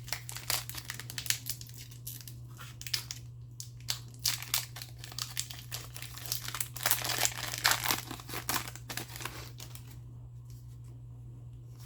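Foil trading-card pack wrapper being torn open and crinkled by hand, a dense irregular crackling that dies away in the last couple of seconds.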